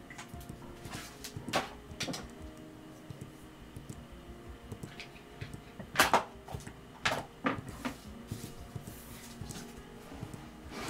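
Irregular clicks and a few sharper knocks from hands working at a computer desk, over a faint low hum. The loudest knock comes about six seconds in.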